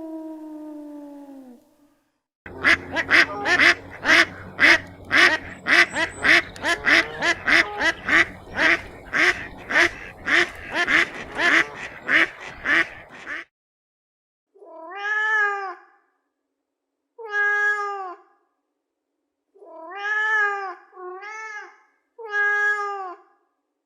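Cat meowing: a fast run of short, repeated meows for about eleven seconds, then five separate longer meows a second or two apart. A falling, howl-like tone fades out in the first two seconds.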